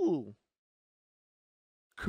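A voice saying "cool", the word trailing off in the first third of a second, then dead silence, and the next "cool" starting at the very end.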